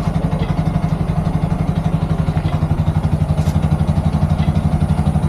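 Bajaj Maxima Z auto-rickshaw engine idling steadily, with an even, rapid pulsing beat.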